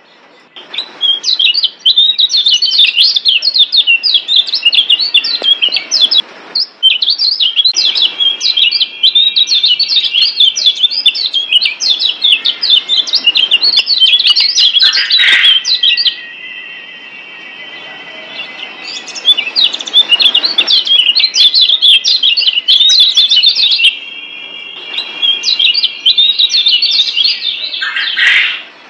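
Kecial kuning Lombok (a Lombok yellow white-eye, Zosterops) singing a rapid, high chattering song almost without pause. There are short breaks, and a quieter stretch of thinner, steadier trilling in the middle.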